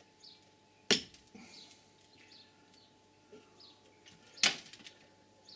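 Small screwdriver prying at the plate on an aluminium air-compressor cylinder head. There are two sharp metallic clicks about three and a half seconds apart, with faint scraping and ticking between them.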